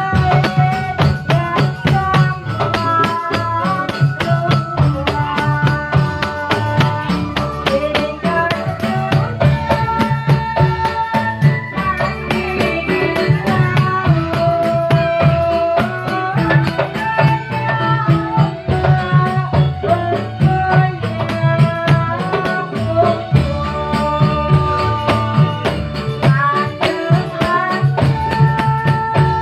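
Javanese dolalak music: a busy, steady beat of hand drums and frame drums under a melody of held notes, playing without a break.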